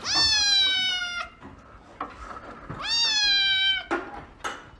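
Kitten meowing twice: two long, high meows of about a second each, each dipping slightly in pitch toward its end, the second about three seconds in.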